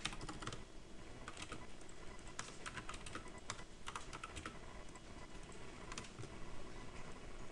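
Typing on a computer keyboard: short clusters of a few keystrokes at a time, with pauses between them.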